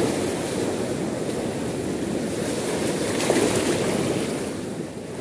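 Swift river current at an estuary rushing and lapping in a steady wash, the water running high and fast on a rising tide.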